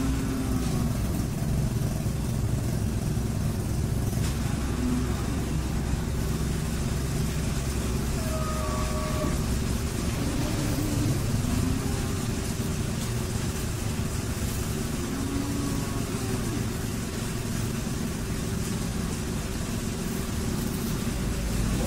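Steady low rumble of motor-vehicle engines running, even in level throughout.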